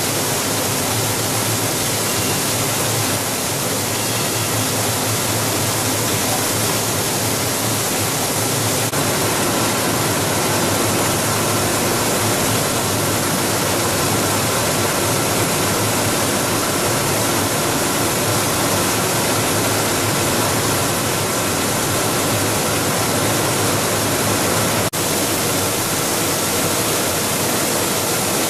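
Plastic recycling and pelletizing line running: a loud, steady machine noise with faint steady tones in it and one brief click near the end.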